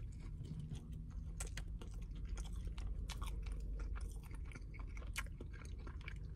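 A man biting into and chewing a mouthful of McDonald's Double Big Mac: soft chewing with many small irregular clicks and smacks close to the microphone.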